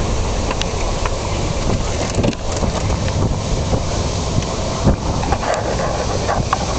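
Steady wind and road rumble of a moving car, with a few sharp taps scattered through.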